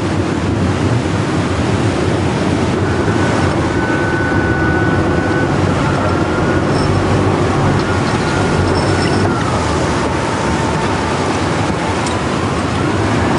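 Boat engine running steadily under heavy wind and rough sea, with a faint whine that rises and falls in pitch.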